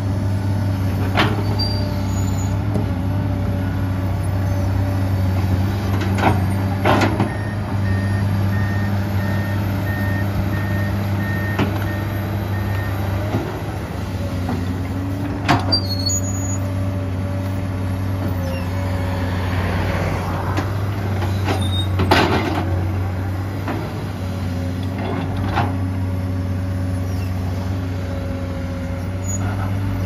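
Komatsu PC200-8M0 excavator's diesel engine running steadily at working speed. A few sharp metallic knocks and clanks break through it now and then, two of them close together about six to seven seconds in.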